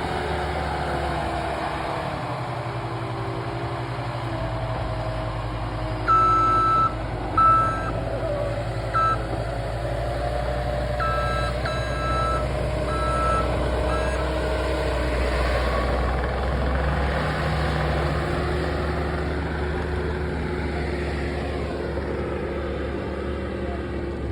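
Skid steer's diesel engine running and working, its pitch rising and falling, with the backup alarm beeping in short bursts, loudest a quarter of the way in and again near the middle.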